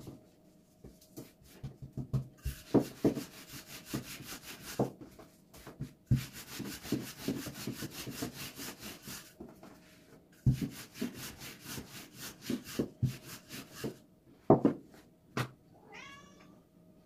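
Dough being rolled out by hand on a wooden board with a thin wooden rolling pin, in long runs of rapid, even rubbing strokes broken by sharp knocks of the pin on the board. A brief high squeal rises and falls near the end.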